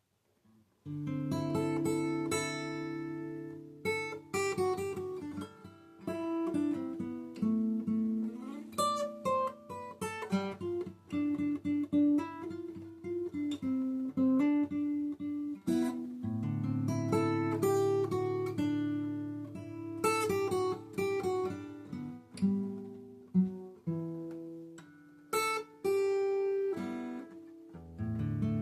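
Solo acoustic guitar playing an original instrumental piece, strummed chords and picked notes left to ring, starting about a second in.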